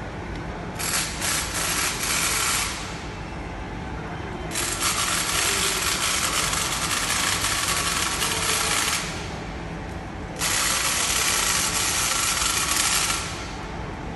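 Ball nut being turned by hand from its mounting sleeve onto a ball screw, its steel balls rolling with a fine, steady rattling whir. It comes in three spells of a few seconds each, the middle one the longest.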